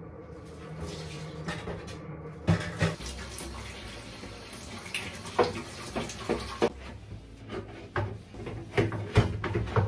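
Kitchen tap running onto a fish grill's wire rack and pan in a steel sink as they are scrubbed and rinsed. The metal clatters and knocks against the sink several times, loudest near the end.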